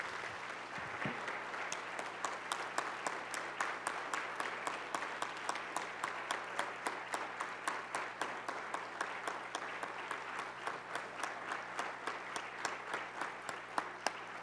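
A congregation applauding: a long, steady round of clapping, with a few individual claps standing out sharper than the rest.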